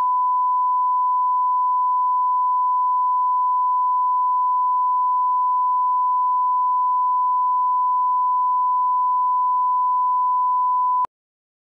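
Broadcast line-up tone: a steady 1 kHz sine tone, the reference used with colour bars to set audio levels at the head of a programme tape. It cuts off suddenly with a faint click near the end.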